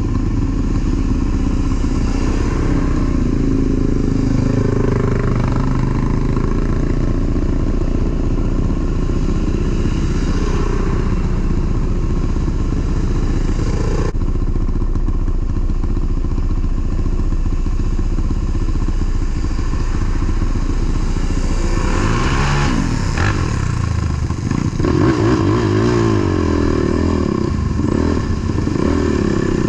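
ATV engine running with the throttle varying, revving up and down a few times past the middle.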